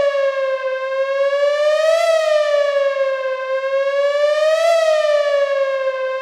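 Ambulance siren wailing: a strong, even tone whose pitch slowly rises to a peak and falls away again, peaking twice, about two and a half seconds apart.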